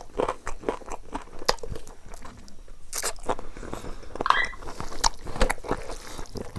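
Close-miked chewing, biting and mouth smacking of chicken and wild mushroom curry with rice, made up of many short clicks and crackles. Fingers squish through the curry and rice about four seconds in.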